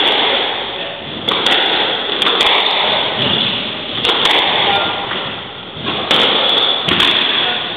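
Squash rally: the ball cracks off rackets and the court walls every second or so, often two hits in quick succession, each hit ringing on in the enclosed court.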